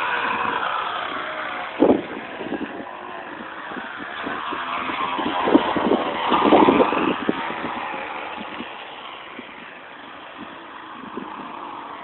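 A flattened plastic bottle held against a knobby bicycle tyre, rattling as the wheel turns and sounding like a motorbike engine. There is a sharp knock about two seconds in, and the sound grows louder between about four and seven seconds in.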